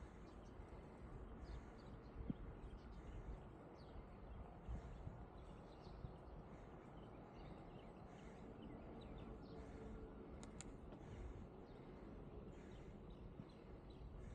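Faint ambience from a moving bicycle: a low, uneven rumble of wind and road noise with scattered bird chirps, a few louder ones about ten seconds in.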